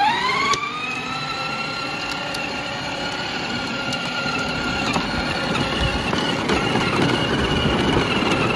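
A small electric motor's high whine, rising quickly in pitch as it spins up and then holding a steady pitch.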